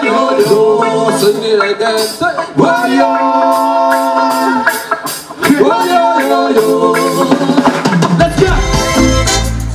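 Band music with a reggae feel: three long held melody phrases, each sliding up into its note, over a steady drum beat with crisp cymbal hits. A deep bass line comes in near the end.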